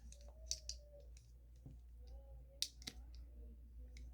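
Faint handling of Lego bricks: a few light plastic clicks and taps, the sharpest about two and a half seconds in.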